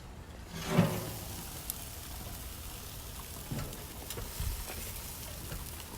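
Marinated shrimp and chicken wings sizzling steadily on the heat, with a few faint clicks.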